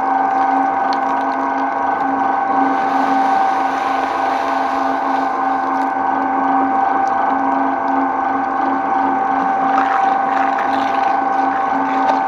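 Twin-shaft shredder's motor and gearbox running with a steady hum while its toothed cutters crunch and tear through packaged items dropped into the hopper, with a stretch of crackling a few seconds in and sharper cracks near the end.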